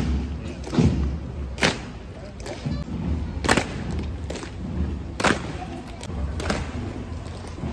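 Evzones' hobnailed tsarouchia clogs striking the pavement together as the guard marches, making sharp clacks every second or two over a low rumble.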